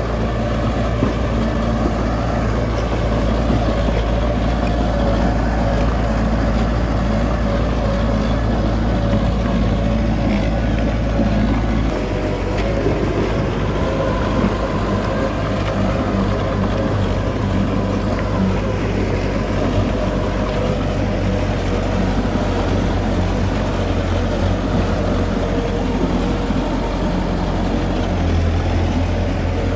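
Heavy diesel engine of earth-moving machinery running steadily, its note changing about twelve seconds in and again near the end.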